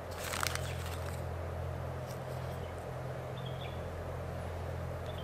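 A steady low hum, with a brief rustle of the plastic bag of chili powder about half a second in as the powder is shaken out over potting soil.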